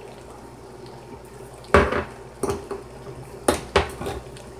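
Metal food cans being handled and opened on a countertop: four sharp metal clanks and knocks spread through the seconds, over a steady low hum.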